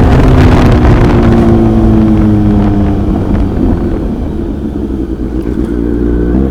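Motorcycle engine. Its pitch falls steadily over the first three seconds or so, then it fades into a steady low rumble.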